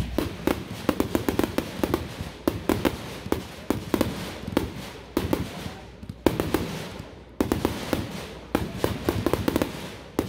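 'Neon Airburst' 60-shot consumer fireworks cake firing: a rapid string of launch thumps and small aerial bursts popping, several a second, in clusters with short pauses between them.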